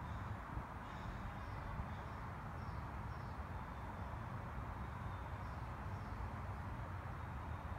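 A breeze rustling the leafy tree canopy and buffeting the microphone: a steady rushing noise. Faint, short bird chirps come now and then.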